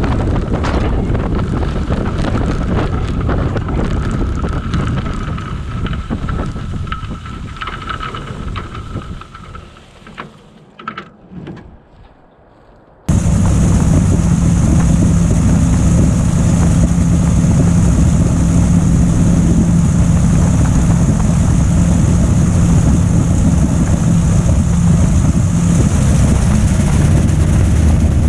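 Blériot XI replica's engine and propeller running with heavy wind noise on the microphone, dying away over several seconds to near quiet. Then, cut in suddenly about 13 s in, the engine running loud and steady with a low hum.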